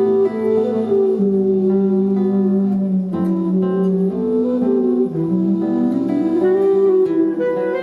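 Instrumental music: a melody of held notes over a sustained low note, with a note sliding up in pitch about five seconds in.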